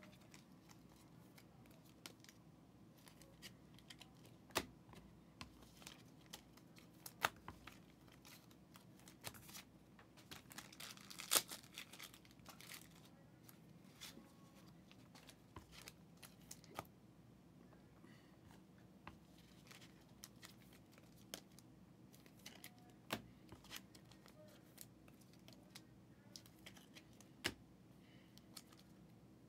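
Faint handling of football trading cards and their pack wrappers: scattered small clicks and taps as cards are sorted, with a brief burst of wrapper crinkling and tearing about eleven seconds in.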